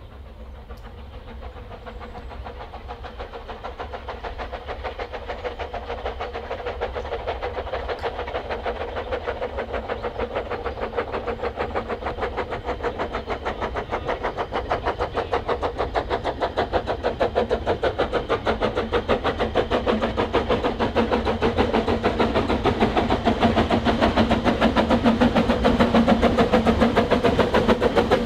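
Ffestiniog double Fairlie Merddin Emrys and George England loco Welsh Pony hauling a train. Their exhaust beats come rapidly and grow steadily louder as the locomotives approach.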